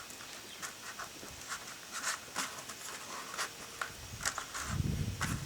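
Scratchy rustling and crackling of hands working through soil and potato plants being dug up. A low rumble comes in near the end.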